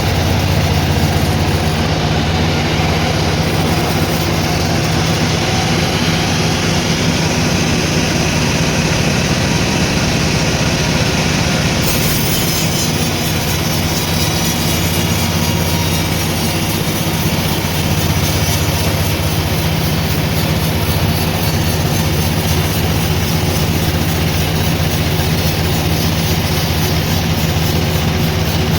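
Sawmill machinery running steadily: a continuous low hum under a broad, even mechanical noise.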